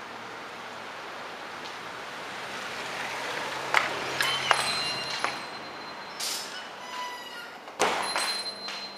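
Glass door with an aluminium frame being handled: several sharp metallic clicks and clinks, some leaving a brief ringing note, then a louder knock near the end, over a steady hiss.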